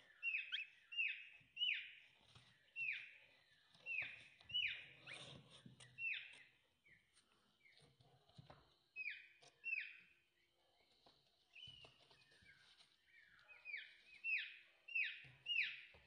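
Domestic chicken chick peeping: a run of short, high peeps that slide downward in pitch, roughly one or two a second. They pause for a few seconds midway, then come closer together near the end.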